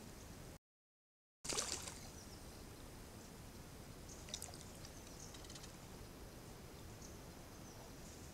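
Young black bear sloshing and splashing water in a plastic water trough, with a burst of splashing right after a brief dead-silent gap near the start and a few smaller splashes and drips about halfway through. Faint bird chirps sound over the low background hiss.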